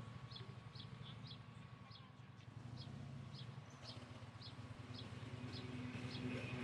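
A bird chirps over and over, a short high call about every half second, over the low steady rumble of a large touring motorcycle riding slowly up. The rumble grows louder near the end as the bike comes closer.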